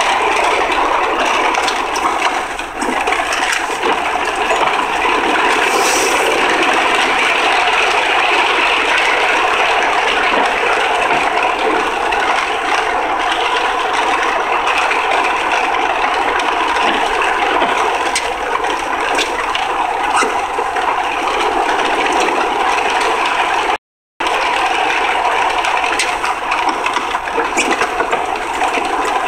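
Steady road and wind noise heard from inside a 2003 Honda Accord on the move, with light rattles. The sound cuts out for a moment near the end.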